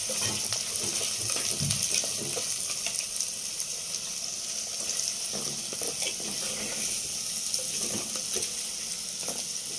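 Chopped onions, garlic and green chillies sizzling in hot sesame oil in a clay pot, with frequent small crackles. A wooden spatula stirs them, scraping and knocking against the pot.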